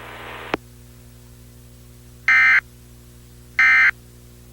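Emergency Alert System end-of-message (EOM) code: two short digital data bursts, each about a third of a second long and a little over a second apart, marking the end of the alert. A click about half a second in as the background hiss cuts off.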